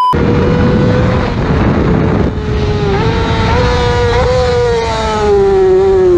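Sport motorcycle engine running at high revs, heard from the bike itself with wind rushing over the microphone. The engine note holds with a few small jumps, then falls steadily over the last couple of seconds as the revs drop.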